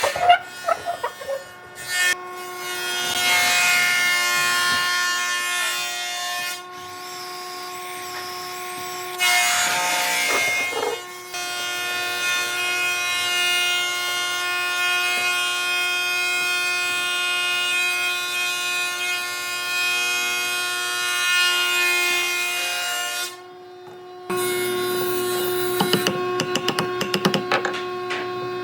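Electric power tool working wood, its motor running with a steady whine and bursts of rougher noise as it bites into the wood. The motor drops off briefly twice.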